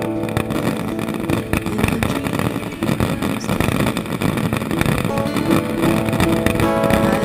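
Aerial fireworks bursting one after another in a dense barrage, with booms and crackling overlapping continuously. Music comes back in under it about five seconds in.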